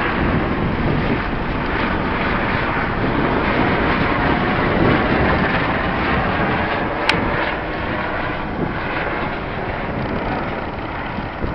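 Steady rushing wind buffeting the microphone high on a zipline tower, with one sharp click about seven seconds in.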